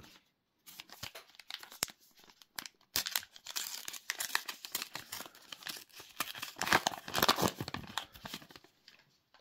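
Trading card booster pack being torn open, its wrapper crinkling and tearing in a dense run of crackles. It grows louder about three seconds in and is loudest near seven seconds.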